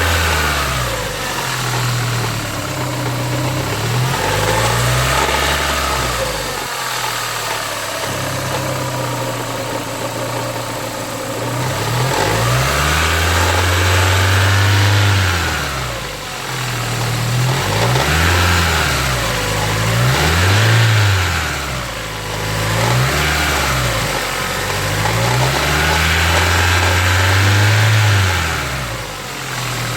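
Engine revved repeatedly from idle, about seven times: each rev climbs in pitch, holds briefly and drops back toward idle.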